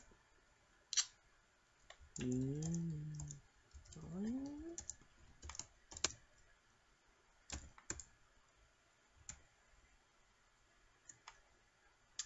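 Computer keyboard being typed on: scattered single key clicks as a short chat message is typed. About two and four seconds in come two brief wordless vocal sounds from a person, the second rising in pitch.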